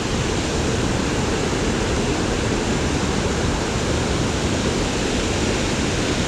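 Steady rushing of flowing creek water, an even noise heaviest in the low range.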